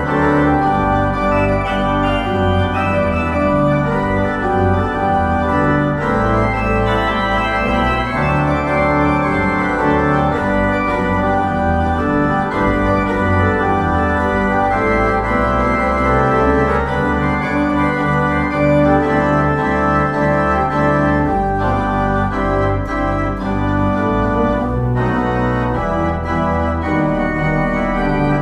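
Organ postlude closing a church service: sustained chords over a changing bass line.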